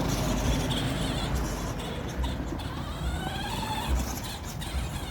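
Spin Master Grave Digger Mega RC monster truck's electric motor whining, its pitch rising and falling with the throttle, over a steady rush of tyre and drivetrain noise.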